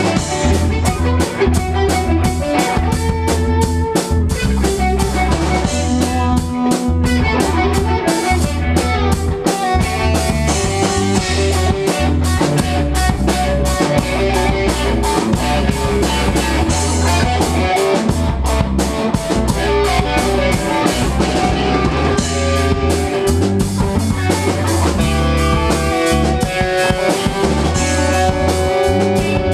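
Live band playing rock music with electric guitars and a drum kit, the drums keeping a steady beat.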